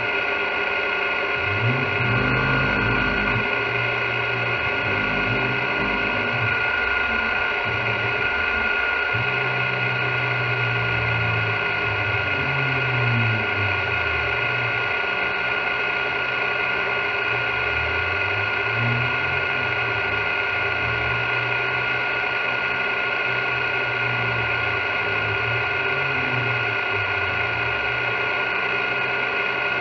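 CNC milling machine cutting aluminium with an end mill under flood coolant: the spindle runs with a steady high whine, while lower tones from the stepper-driven axes rise and fall in pitch as the table and head change speed and direction.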